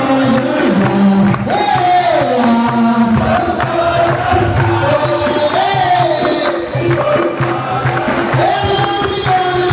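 Capoeira roda music: voices singing a chant together over berimbau and pandeiro.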